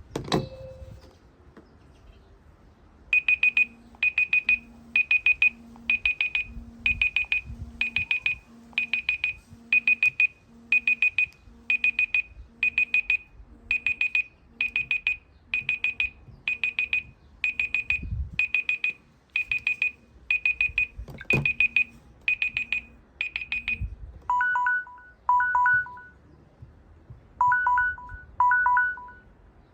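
Smartphone timer alarms going off: after a click, rapid high-pitched beeps come in groups about once a second for some twenty seconds, then about 24 seconds in a different phone's alarm takes over with pairs of lower two-note beeps.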